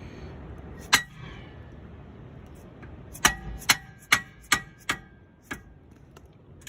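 Dead blow hammer striking the handle of a 3/8-inch ratchet to break loose a 17 mm brake bolt: one blow about a second in, then a quick run of about six more, some two or three a second, the last one lighter. Each strike is sharp, with a brief metallic ring.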